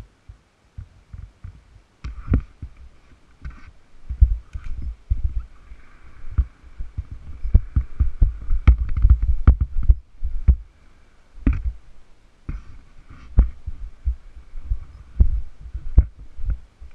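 Irregular low thumps and knocks from a helmet-mounted camera jolting as a youth 90cc ATV rides a rough wooded trail, with a faint steady hum underneath. The thumps are sparse at first and come thick and fast from about two seconds in.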